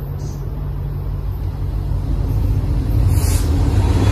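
BNSF diesel freight locomotives approaching, their low engine rumble growing steadily louder as they near. A steady engine note comes in about halfway through.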